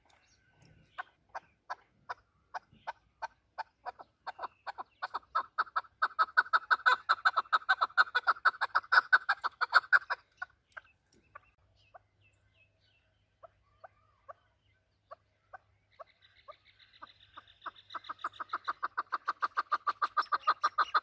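Male chukar partridge giving its rally call: short clucking notes, spaced at first, speed up and grow louder into a rapid run, then break off about ten seconds in. A few scattered notes follow, then a second run builds near the end.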